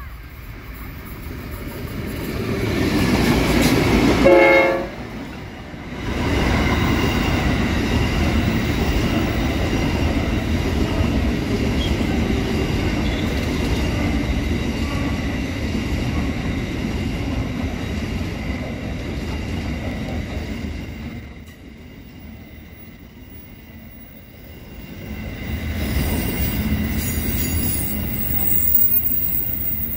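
A CBH grain train passing. The approaching diesel locomotive sounds its horn briefly about four seconds in. Then a long rake of grain hopper wagons rolls by with a steady rumble and clatter of wheels on rail and a thin high wheel squeal, fading for a few seconds after about twenty seconds before swelling again.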